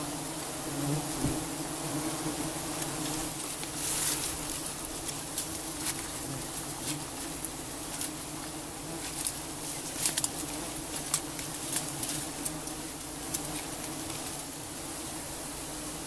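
A giant honeybee colony buzzing in a dense, steady hum while it is being smoked, with scattered sharp clicks throughout.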